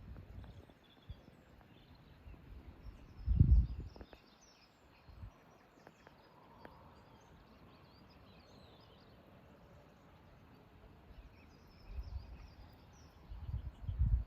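Wind buffeting the microphone in gusts, a strong one about three and a half seconds in and more near the end, with faint birdsong chirping throughout.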